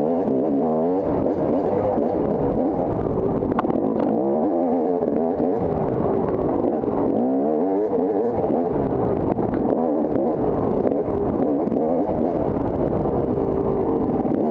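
Off-road motorcycle engine revving up and down continuously as it is ridden, its pitch rising and falling again and again with throttle and gear changes.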